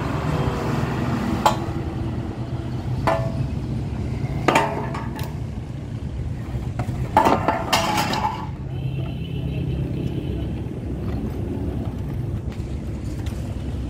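Sharp metal clinks and clanks, about five in the first eight seconds, some with a short ring, as a radiator core and its loose sheet-metal side pieces are handled and set down. Under them runs a steady low vehicle rumble.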